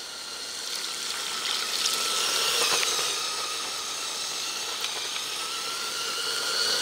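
Small electric motors of a LEGO Technic RC truck whining steadily over a constant hiss.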